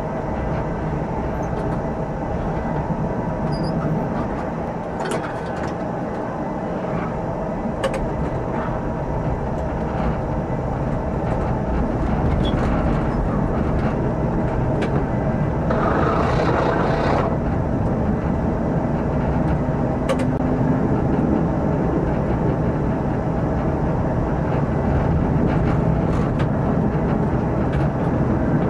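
Tram running along the track, heard from inside the driver's cab: steady motor and wheel-on-rail noise that gets a little louder after about ten seconds. A brief louder hiss comes about halfway through, with a few light clicks scattered across.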